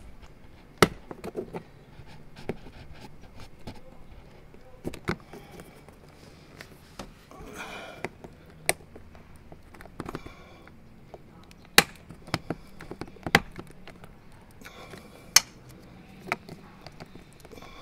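Irregular sharp plastic clicks and knocks, a few seconds apart, from prying and working a courtesy light out of its recess in a Tesla Model Y's lower door trim. The light is stubborn and hard to get out.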